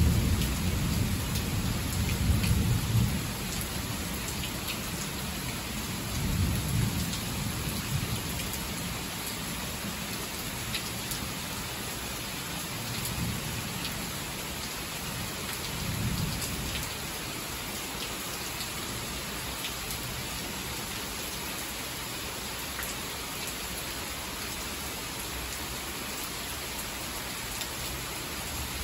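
Heavy rain falling steadily, with thunder rumbling deep and loud over the first few seconds, then swelling again twice more, fainter. Sharp taps of drops hitting nearby surfaces sound through the hiss.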